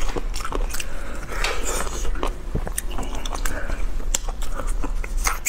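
Close-miked eating: a person biting and chewing roast chicken and pulling meat off the bone, with many quick, irregular wet clicks and crackles.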